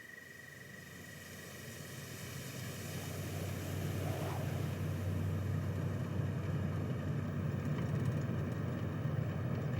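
Low, steady drone of a motor vehicle running, growing louder over the first four seconds and then holding steady.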